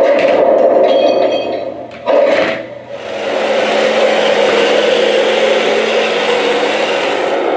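Remote-control Sherman tank model driving across a wooden floor, its electric drive motors and gearboxes whining and its tracks rubbing and rattling on the boards. The sound drops briefly about two and a half seconds in, then runs on more steadily as the tank keeps moving and turning.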